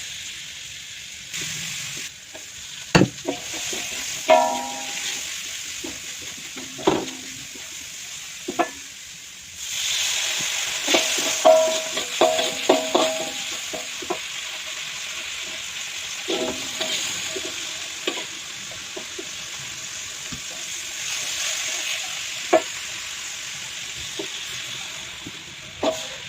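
Food sizzling as it fries in oil in a pan, with a metal spatula stirring, scraping and clinking against the pan now and then; the sizzle swells about ten seconds in and again near the end.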